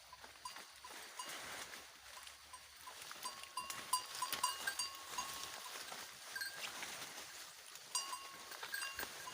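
Small bells on goats clinking and ringing again and again as the animals move and feed, over a soft hiss.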